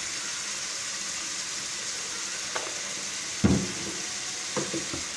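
Chicken and masala frying in oil in a karahi, a steady sizzle, with a few knocks against the pan; the loudest knock comes about three and a half seconds in.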